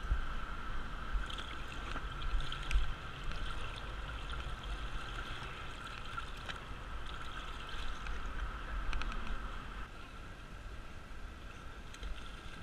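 Water splashing and gurgling at the side of a boat as a striped bass is released by hand, with an uneven low rumble of wind on the microphone. A steady high hum runs underneath and fades about ten seconds in.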